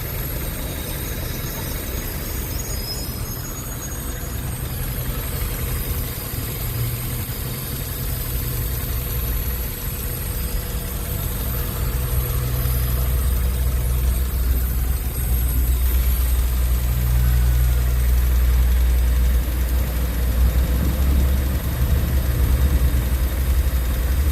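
Honda Civic's D16Y1 1.6-litre SOHC VTEC four-cylinder engine idling steadily, growing somewhat louder about halfway through. The owner says it runs perfectly with no more rod knock after a Blue Devil sealant treatment.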